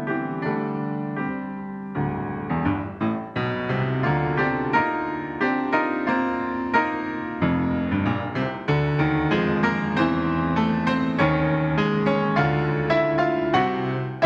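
Solo grand piano playing a flowing piece of single notes and chords, the notes coming a little faster in the second half.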